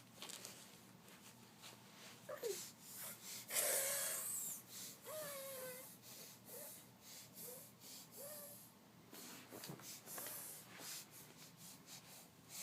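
Sniffling and snorting: repeated short, breathy sniffs, the loudest about four seconds in, with several brief squeaks between them that slide up or down in pitch.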